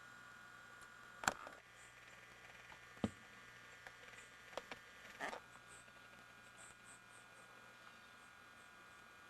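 A few sharp clicks and knocks, two of them louder, over a faint steady hum.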